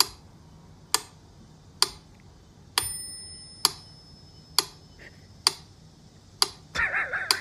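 Regular clock-like ticking, about one sharp tick a second. One tick is followed by a ringing bell-like ping, and a brief wavering warble comes near the end.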